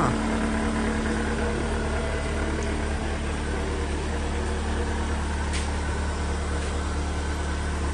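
MG TF 135's mid-mounted 1.8-litre K-series four-cylinder engine idling steadily, ticking over okay.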